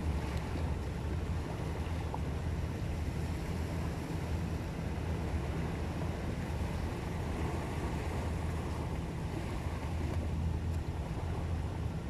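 Small sea waves washing and breaking against shoreline rocks, a steady wash that swells slightly partway through, over a constant low rumble.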